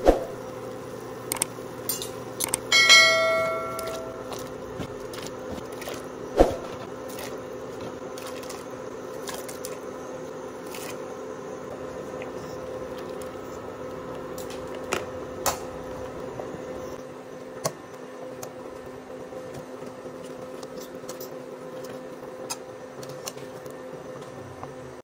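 Water at a rolling boil with pasta in a stainless steel pot, over a steady hum. A metal spoon strikes the pot with a brief bell-like ring about three seconds in. A few sharp knocks of utensil on pot are heard, the loudest at the start and about six seconds in.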